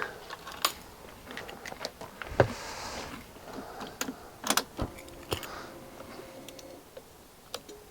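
Irregular clicks and knocks of things being handled, most likely a key and keys, with a short rustle about two and a half seconds in.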